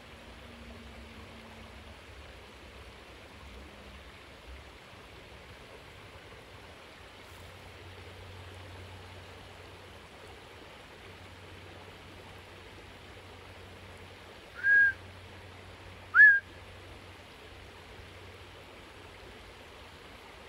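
Two short, loud whistles about a second and a half apart, the second sliding up in pitch, over a faint steady rush of creek water.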